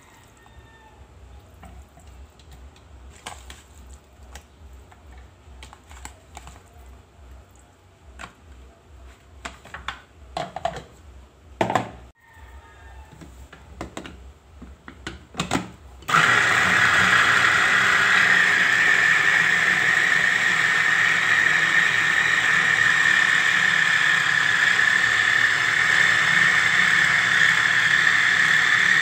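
Clicks and light plastic knocks as the blade, bowl and motor lid of a small electric food chopper are fitted together. About halfway through, its motor starts and runs with a steady high-pitched whirr, mincing chicken.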